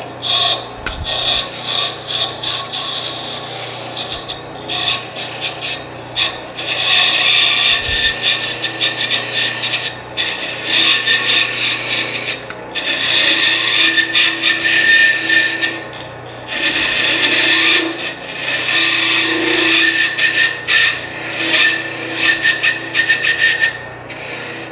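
Parting tool cutting a depth stop into wood turning on a lathe: a steady scraping hiss, broken by several brief pauses, over the lathe's steady low hum.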